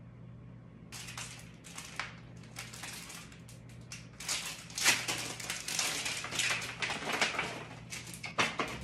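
Irregular rustling and crinkling from clothes being handled and bodily movement, starting about a second in and busiest in the middle, over a faint steady low electrical hum.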